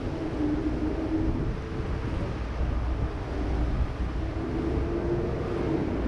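A boat's engine running steadily with a low rumble and a wavering hum, with wind buffeting the microphone.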